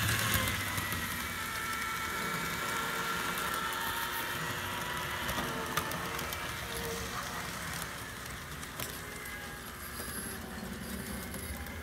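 Freshly serviced TYCO HO-scale Burlington diesel locomotive with its MU-2 motor, running and pulling its train around the track: a steady motor whir with faint whining tones and a few scattered clicks.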